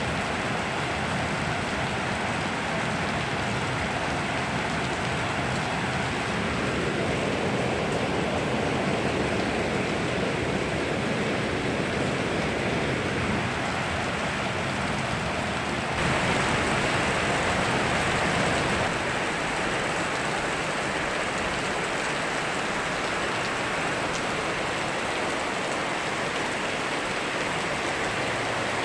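Steady rainfall mixed with the rushing of a river, an even wash of water noise. It swells and brightens for a few seconds a little past the middle, then settles back.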